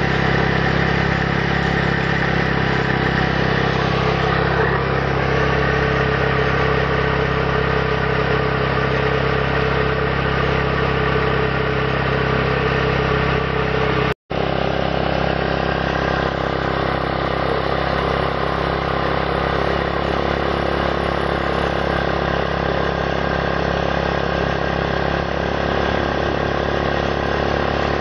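Small motorcycle engine running steadily in gear on a stand, its rear tyre spinning a small water pump by friction. The sound drops out for an instant about 14 seconds in, then the running carries on as before.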